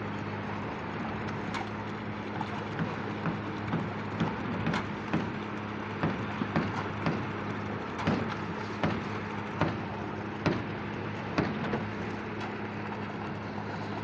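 Engine of the concrete pump delivering ready-mix running steadily, with a series of sharp knocks about once or twice a second from about two seconds in until near the end.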